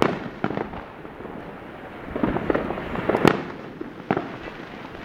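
Firecrackers and fireworks going off: scattered sharp bangs, a run of rapid crackling about two seconds in, and the loudest bang a little after three seconds.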